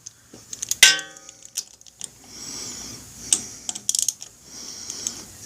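Metal hand tools working the tappet screen plug on a motorcycle engine as it is tightened by hand: a sharp metallic clank that rings for about a second, then scattered light clicks and ticks of the wrench and socket.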